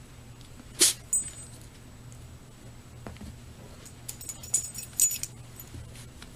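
Short bursts of small metallic jingling as a Shiba Inu puppy plays: one about a second in, and a cluster of jingles between about four and five seconds in, over a faint low hum.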